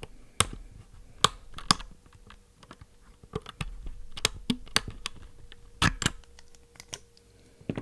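Sharp plastic clicks and small scrapes as an Everglide Jade tactile switch is pulled out of a mechanical keyboard, with a few loud clicks and fainter handling between them.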